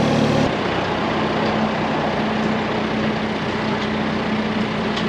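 A heavy vehicle engine running steadily; its note shifts about half a second in, then holds.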